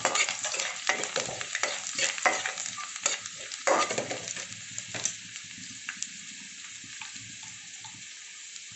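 Chopped garlic sizzling in hot oil with cumin and mustard seeds in a kadhai: the tempering, browning the garlic to a light golden. A steel spoon scrapes and stirs against the pan for the first half, then the sizzle goes on steady and quieter.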